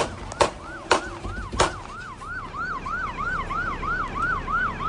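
Several sharp gunshots in the first second and a half, police shooting at the driver, followed by a police car siren in fast rising-and-falling yelp cycles, about three a second.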